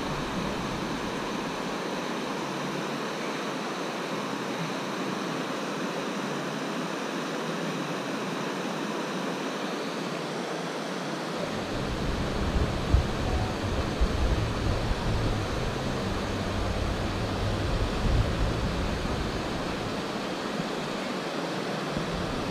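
Creek water rushing over small rock-ledge cascades, a steady even rush. From about halfway through, irregular low rumbling buffets hit the microphone and fade again shortly before the end.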